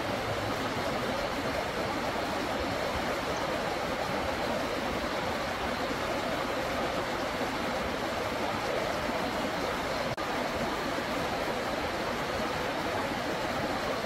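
Steady rushing of a mountain stream, an even wash of water noise, with one brief click about ten seconds in.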